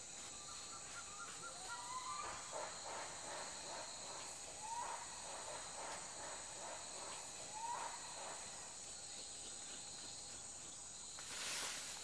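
Steady high drone of insects, with a few soft, creaky calls from gang-gang cockatoos spaced a few seconds apart. A short rush of noise comes near the end.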